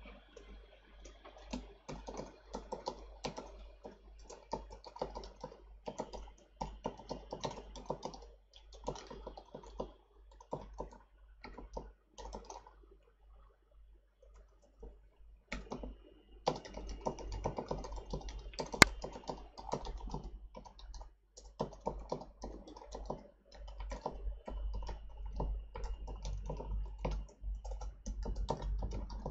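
Typing on a computer keyboard: quick runs of key clicks in bursts, pausing for about three seconds midway, with one sharper, louder keystroke soon after the typing resumes.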